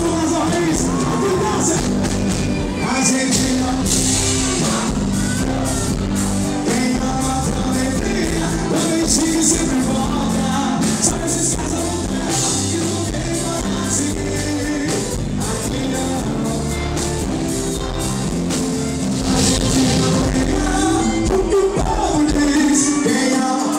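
Live band music with a man singing lead into a microphone, played loud in a large hall.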